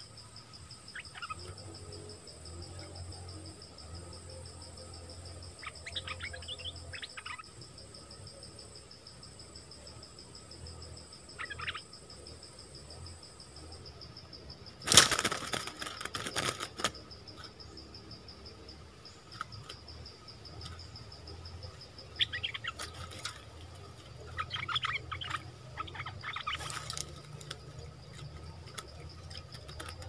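Bird cage trap snapping shut about halfway through, with a brief clatter and the caught birds flapping inside, the loudest sound here. Short bulbul chirps come before and after over a steady, high insect drone.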